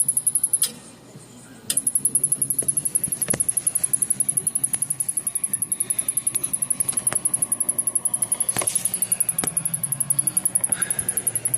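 Samsung rear-projection CRT television ticking rapidly from inside while powered. The ticking is high-pitched and even, and breaks off for about a second near the start before resuming. The owner takes it for the sign of something shorting out on the main power board without blowing any fuses.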